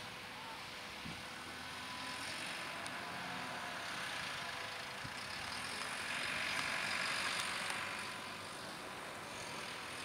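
Diesel engine of a JCB 536-60 Agri Super telehandler running steadily as it drives across straw stubble, growing louder about six seconds in and easing off again after about eight seconds.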